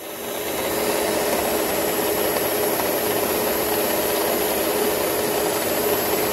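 Electric stand mixer running with its dough hook turning through dry flour, yeast and sugar: a steady motor hum and whine over a rough rubbing noise, growing louder over the first second and then holding level.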